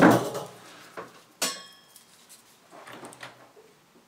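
Handling noise as the computer's circuit board is turned over and set down on its metal chassis: rustling and knocks, then a sharp metallic clack that rings briefly about a second and a half in, with softer rustling near the end.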